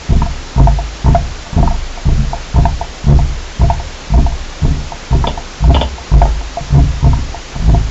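A regular low thumping from underground, about two beats a second, each beat a short rumble that dies away, with a faint click on top. The uploader takes it for engine machinery working in an underground tunnel.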